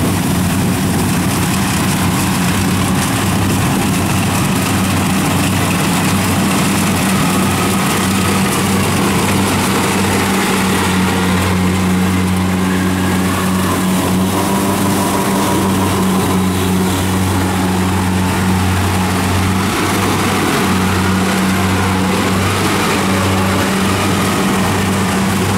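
Kubota DC-70 rice combine harvester's diesel engine running steadily under load as the machine cuts rice, a constant low drone.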